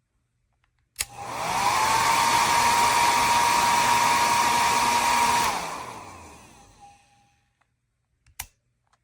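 Conair compact travel hair dryer switched on with a click about a second in: its motor whine rises quickly to a steady pitch over a loud rush of air. After about four seconds it is switched off, and the whine and air rush wind down over a couple of seconds. A second click comes near the end.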